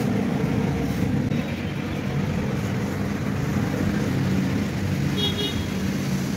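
Steady low hum of passing road traffic and engines, with a short high-pitched vehicle horn beep about five seconds in.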